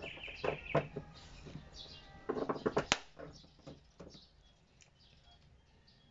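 Plastic clicks and knocks as an LED fender signal light is handled and pressed into its hole in a car's front fender, with a quick cluster of them about two and a half to three seconds in. Birds chirp in the background.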